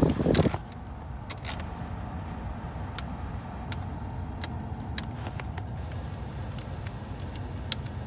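Car heater blower fan running, its rush dropping sharply about half a second in as the fan-speed knob is turned down, then running steadily. The plastic heater/AC mode buttons and knob click about eight times, several seconds apart.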